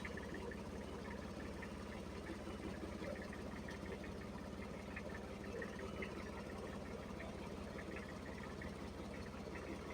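Boxer 700HDX mini skid steer's engine running at a steady speed while the machine is operated from its control by someone standing beside it.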